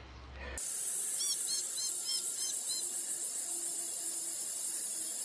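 Garden hose spray nozzle on its flat setting spraying water onto a plastic pot of potting mix: a steady hiss that starts suddenly about half a second in. A run of short high chirps about a second in.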